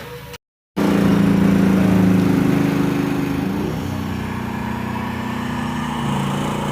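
A motor engine running steadily and loudly at constant speed, starting abruptly after a brief cut to silence, with a slight dip in its tone about halfway through.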